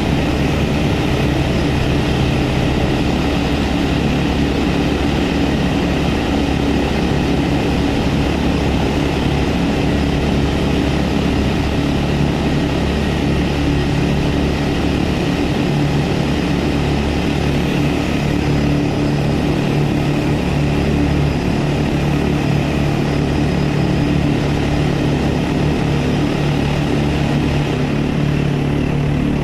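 Several hand-held pneumatic jackhammer rock drills hammering at once into the rock of a tunnel face, drilling blast holes; a loud, steady, rapid rattle that never pauses.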